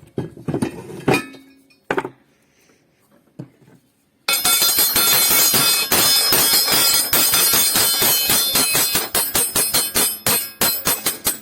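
A few separate metal clinks, then from about four seconds in a long run of rapid, ringing metallic clinking and jangling, as of loose bolts and small metal parts stirred together, thinning out near the end.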